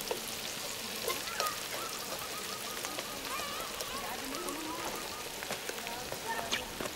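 Tempeh and vegetables frying in oil in a wide metal wok: a steady sizzle with small crackles.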